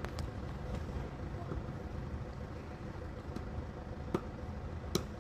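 Firewood being split by hand: short sharp knocks of the tool striking the wood, a couple right at the start and two more about four and five seconds in, over a steady low rumble.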